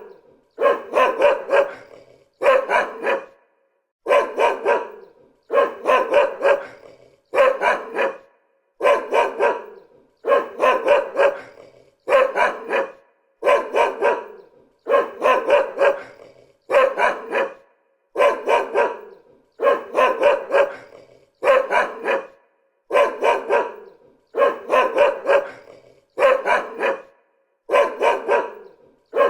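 A dog barking in quick runs of two or three barks, the runs repeating at an even pace about every second and a half with short silences between.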